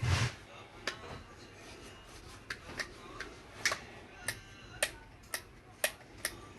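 A dull thump, then a string of sharp clicks at uneven intervals, roughly one or two a second, some with a short ringing tone.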